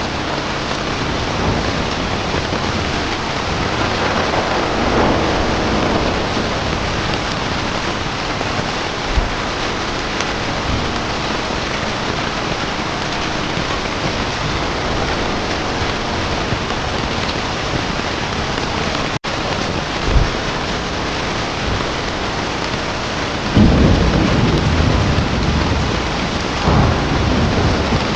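Steady heavy rain, with low rolling thunder swelling up twice: once a few seconds in, and more loudly near the end. A couple of short pops are heard, and the sound cuts out for an instant about two-thirds of the way through.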